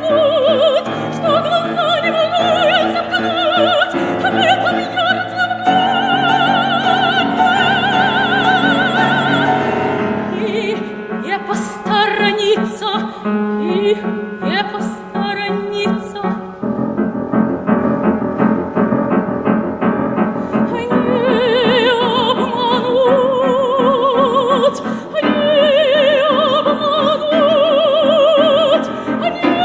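Operatic soprano singing with wide vibrato over piano accompaniment. About a third of the way in, the voice drops back for several seconds while the piano plays repeated chords, then the soprano returns on sustained high notes.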